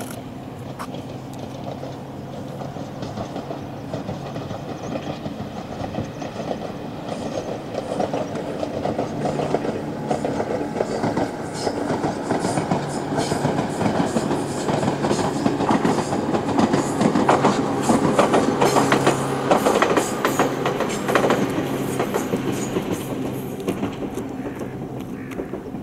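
Ohmi Railway two-car electric train, set 808F, passing at a distance. The wheel clatter over the rail joints builds to a peak past the middle and then fades away.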